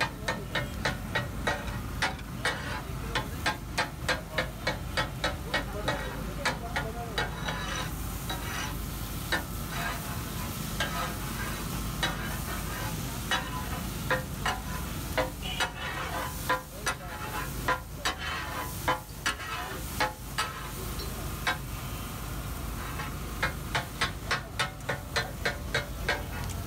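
Metal spatulas chopping and scraping fish katakat on a flat iron tawa, clattering at about four strikes a second in bursts with short pauses, over the sizzle of frying.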